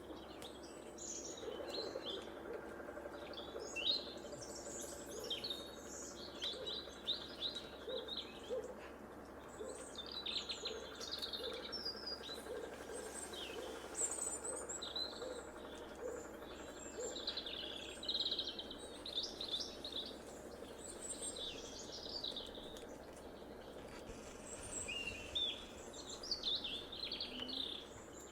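Several small songbirds chirping and calling around bird feeders, many short high chirps and trills overlapping. Beneath them, a low note repeats roughly once a second for the first two-thirds, and a faint steady hum of distant construction works runs underneath.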